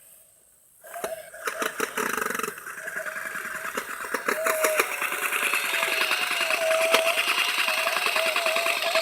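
Toy chainsaw running: a fast, rattling, engine-like buzz with a wavering tone, starting about a second in.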